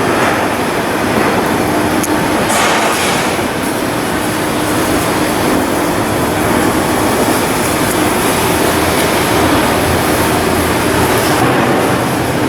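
Steady, loud machinery noise: a dense hiss over a faint low hum, with a brief sharper hiss about two to three seconds in.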